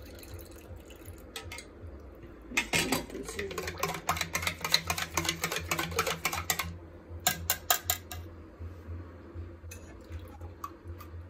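Metal spoon stirring bael pulp into curd in a steel tumbler, clinking rapidly against the metal sides for about four seconds, then a few separate louder clinks before it stops.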